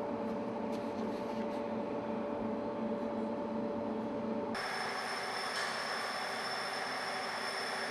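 Overhead crane hoisting a metal container cover: a steady mechanical hum with a few fixed tones. About halfway through, the sound changes abruptly to a brighter, higher whine with hiss.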